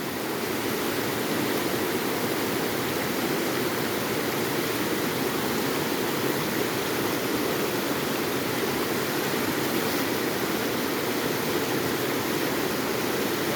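Waterfall's rushing water: a steady, even rush of falling and flowing water.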